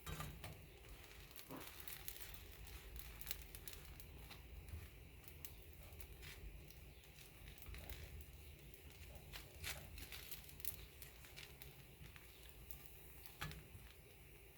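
Sourdough bread toasting in a pan of oil and butter, faintly sizzling with scattered small crackles and pops.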